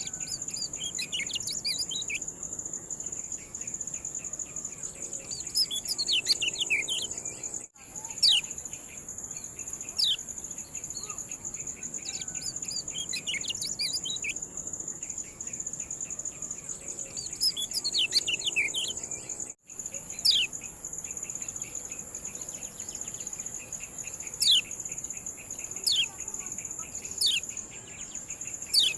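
Kecial kuning 'ciak' calls: sharp, quickly falling chirps, some in busy clusters and some single. A steady high insect-like drone runs underneath, and the sound drops out briefly twice.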